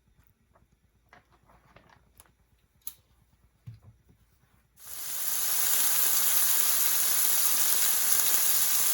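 A few faint clicks and taps, then about halfway in a loud, steady sizzle starts suddenly: marinated chicken frying in olive oil in a pan.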